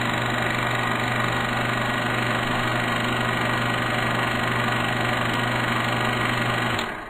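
Film projector sound effect: a steady mechanical whir over a low hum, fading out near the end.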